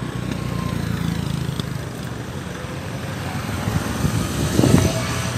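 Street traffic: vehicle engines running and passing close by in a steady low rumble, with a short louder burst about four and a half seconds in.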